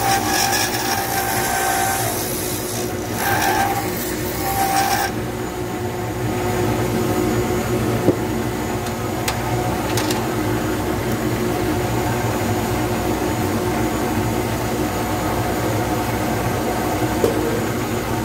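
Lathe spinning a resin pen blank while a turning tool cuts it with a scraping hiss for the first five seconds or so, broken twice by short pauses. After that the lathe runs on steadily with its motor hum and no cutting, with a sharp tick about eight seconds in.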